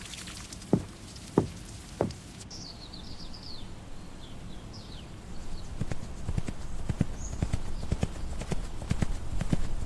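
Three sharp knocks, then a few high bird chirps, then horse hooves clip-clopping at a walk on hard ground, growing louder through the second half.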